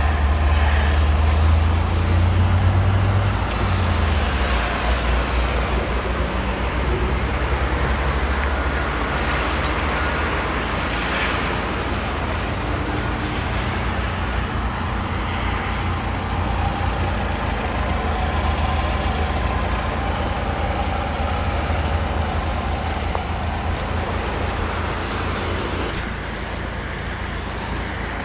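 Chevrolet Niva's 1.7-litre eight-valve inline-four idling steadily, a low rumble that is a little louder in the first few seconds.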